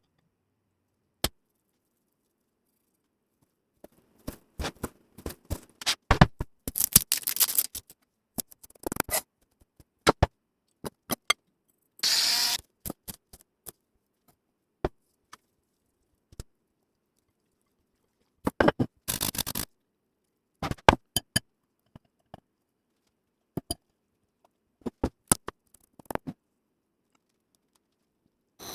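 Kitchen food-preparation handling sounds: scattered clicks, knocks and short scraping strokes of utensils and dishes, with a longer scraping rustle about twelve seconds in, separated by stretches of complete silence.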